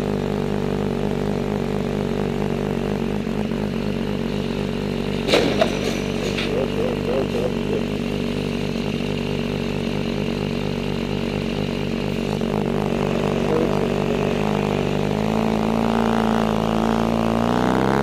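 Motorcycle engine idling with a steady, slightly wavering note. A sudden short, sharp noise comes about five seconds in, and from about three-quarters of the way through the engine note rises as it revs up.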